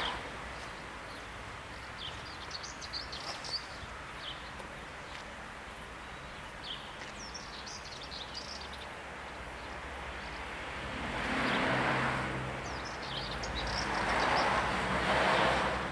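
Outdoor background with short, high bird chirps scattered throughout. In the last few seconds a rushing noise with a low hum swells up and fades several times.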